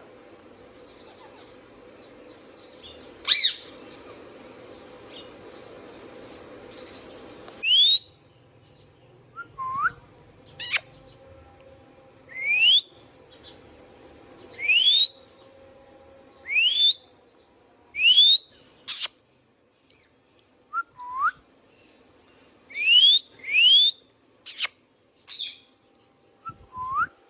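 Indian ringneck parakeet giving short, sharp, rising whistled calls, repeated every second or two, with a few lower hooked notes among them.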